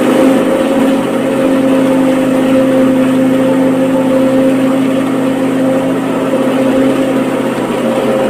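Electric blender running at a steady pitch, whipping milk, ice and coffee into cold coffee.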